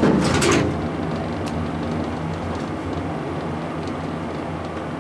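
Vintage Otis elevator's doors closing with a brief loud rush right at the start, then the car's machinery running with a steady low hum.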